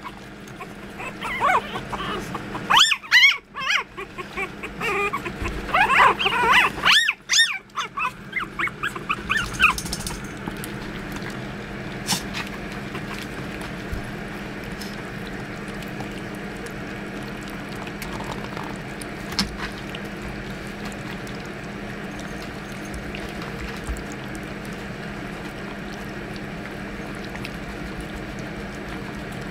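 Young puppies whimpering and yipping in many short, high squeals over the first ten seconds, then quieting to faint lapping and smacking as they eat together from a shallow dish.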